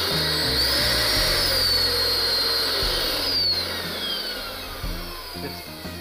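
Panasonic canister vacuum cleaner motor running with its casing open, a high whine that falls in pitch and fades over the second half as the motor winds down. It runs properly after the motor has been refitted, showing the repair works.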